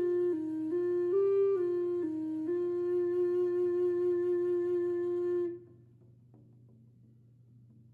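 A flute-like wind instrument plays a few slow notes, stepping up and down, then holds one long note that stops about five and a half seconds in. A faint low hum runs underneath and is all that remains after the note ends.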